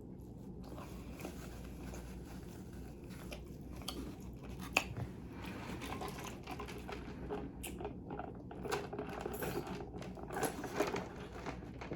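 A person chewing and biting food close to the microphone, with small mouth and handling noises and a sharp click about five seconds in.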